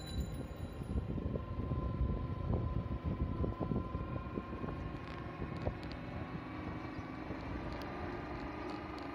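Engine and road noise of a moving vehicle, with wind buffeting the microphone.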